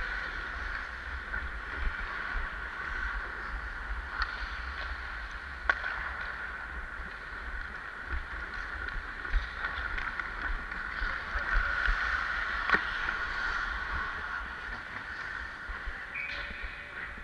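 Ice skate blades scraping and gliding over rink ice, heard from a camera worn by a skating player, with low wind rumble on the microphone. A few sharp knocks of hockey sticks or puck cut through.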